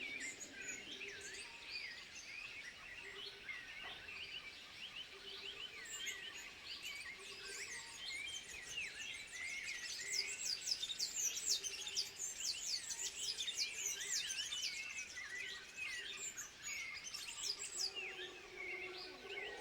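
A dense chorus of high chirping and twittering animal calls, many voices overlapping, busiest from about ten to sixteen seconds in, when rapid sweeping chirps pile up. A fainter low note comes and goes underneath.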